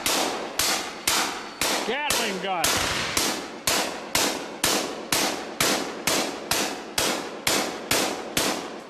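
Hand-cranked Gatling gun firing blank rounds in a steady string of evenly spaced shots, about two a second, stopping just before the end.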